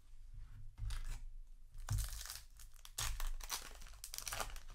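A foil trading-card booster pack being torn open, its wrapper crinkling in several short bursts about a second apart.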